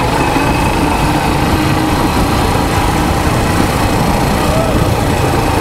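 Small motorcycle engine running steadily while riding along a street, mixed with wind rushing over the camera's microphone.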